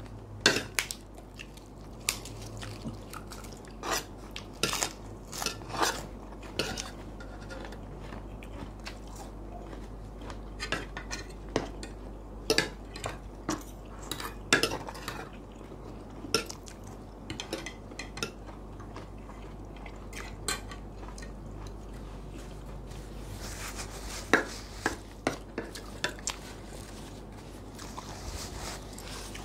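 Metal spoons and forks clinking and scraping against plates as two people eat, in short irregular clinks.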